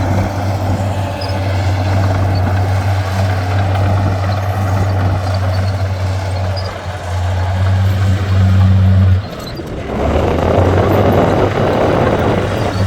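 Heavy diesel engine of earthmoving machinery running with a steady low drone. A little after nine seconds in the drone cuts off abruptly and a noisier, rushing sound takes over.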